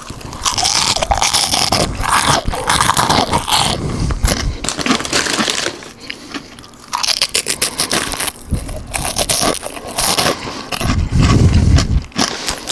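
Loud, close crunching and chewing of crispy pork rinds (fried pork skins), with irregular crackly bites that ease off for a moment about six seconds in before picking up again.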